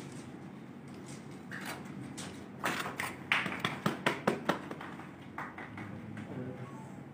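A few people clapping: about two seconds of sharp, uneven claps in the middle, over low room noise.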